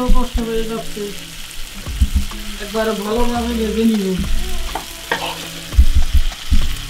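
Beef and onions sizzling in hot mustard oil in a wok while a spoon stirs and scrapes. Spoon knocks on the pan and steel pot several times, mostly in the second half. A wavering low tone comes and goes underneath.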